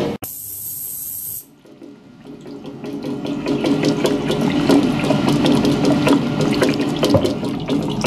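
Water in an ultrasonic cleaning tank, churning with a dense crackle of many small clicks. It swells in from about two seconds in, after a brief high hiss.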